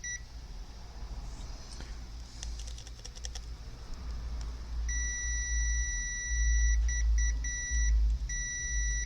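A multimeter's continuity beeper sounding as the probes touch a MOSFET on a PS5 power supply board. There is a brief beep at the start, then from about halfway a steady beep held almost two seconds, a few short broken beeps and another long beep near the end, the tone of a shorted MOSFET. A low hum runs underneath.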